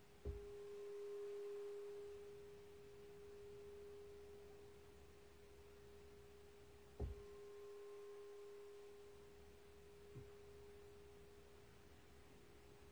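A meditation bell struck twice, about seven seconds apart, each strike ringing on as a single steady pure tone that slowly fades, with a lighter tap about ten seconds in. It marks the end of the silent meditation period.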